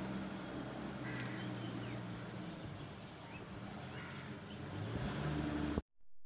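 Outdoor background with a steady low motor hum that rises in pitch briefly near the end, and a few faint high chirps; the sound cuts off to silence just before the end.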